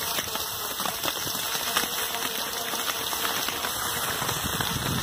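Steady, gritty hiss and crunch of travel along a packed snow trail.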